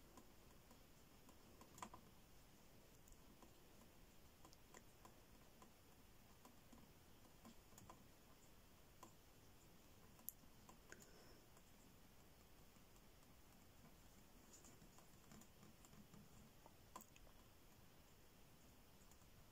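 Near silence: quiet room tone with faint, scattered small clicks, the sharpest about two seconds in, about ten seconds in and near the end.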